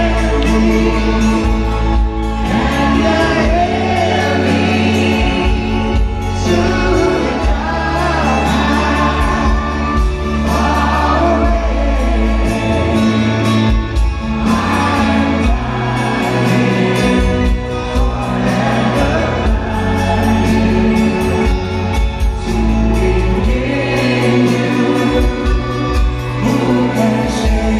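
Live pop-rock band performing a slow anthem, a male lead vocal with female backing singers and many voices singing together over sustained bass and guitar, heard from the audience in a large arena.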